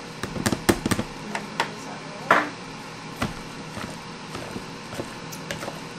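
Hand potato masher working boiled potatoes and butter in a plastic bowl: irregular knocks and clicks of the masher against the bowl and squishing of the potatoes, with one louder knock about two seconds in.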